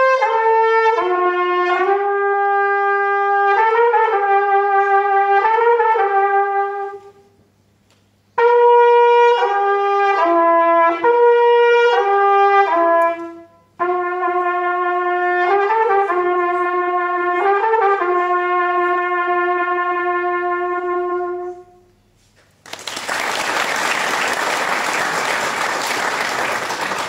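Solo trumpet playing a slow melody with long held notes, in three phrases separated by short pauses. After the last phrase, about three-quarters of the way through, the audience applauds.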